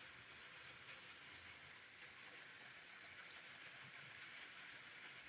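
Faint, steady rain: an even hiss of rainfall with no distinct drops standing out.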